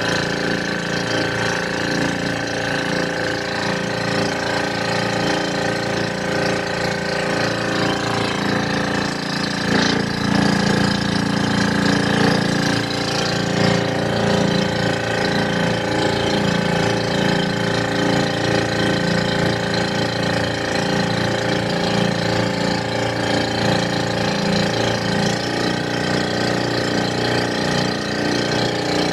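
A small fishing boat's engine running steadily, one constant pitch throughout.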